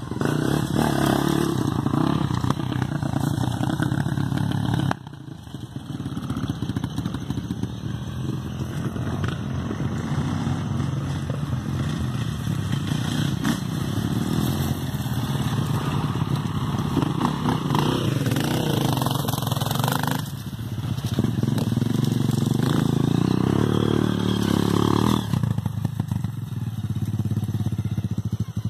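Dirt bike engines running hard under throttle, the pitch rising and falling as the throttle opens and closes. The sound changes abruptly a few times.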